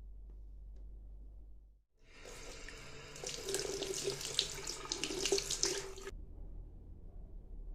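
Water running from a tap and splashing into a basin for about four seconds, starting about two seconds in and cutting off suddenly, over a faint low hum.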